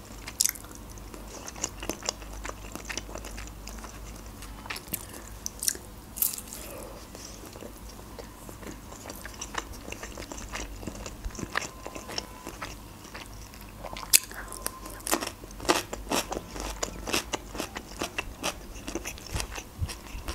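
A person chewing food close to the microphone, with many short mouth clicks scattered throughout.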